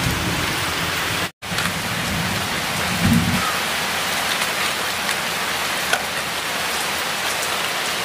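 Steady rain falling, a dense even hiss with scattered drop ticks. The sound cuts out for a moment just over a second in, and a short low rumble comes about three seconds in.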